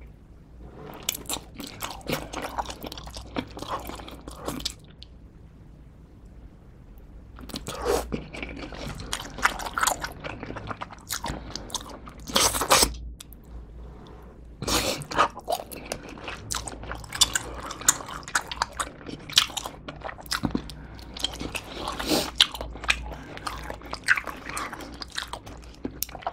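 Biting and chewing pepperoni cheese pizza close to the microphone: bouts of bites and chewing, broken by short pauses about five and thirteen seconds in.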